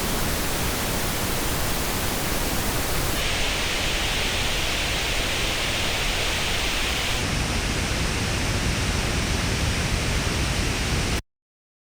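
Pink noise test signal played through earphones into an artificial-ear measurement rig. About 3 s in, the tone changes to a strong upper-mid emphasis with less top end. About 7 s in, it shifts again to a fuller bass with the mid bump gone, then cuts off abruptly near the end.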